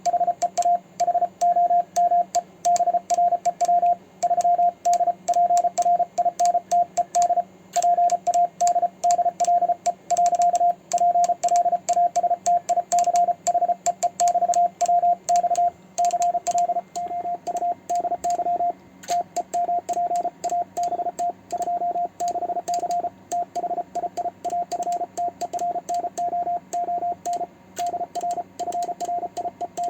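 Morse code sent as a rapid on-off tone of one pitch, keyed at high speed with a homemade 3D-printed iambic paddle, with sharp clicks between the characters. About two-thirds of the way in, the tone picks up a noisy hiss behind it, like a signal heard through the receiver.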